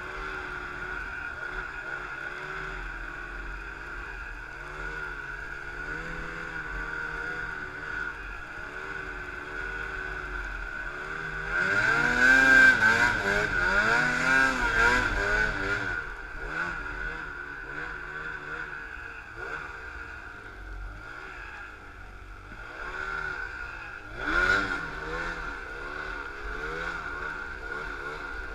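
Snowmobile engine running through deep powder, its pitch wavering up and down with the throttle. It gets much louder for about four seconds near the middle, and again briefly near the end.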